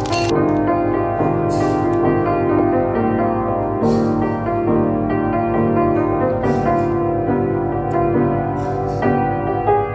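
Background music with piano-like keyboard notes, over which a few brief noisy rustles come and go.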